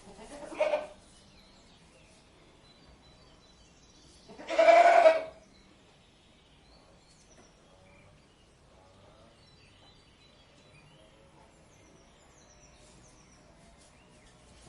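Goat bleating twice: a short bleat under a second in, then a louder, longer one about four and a half seconds in. Faint bird chirps follow in the background.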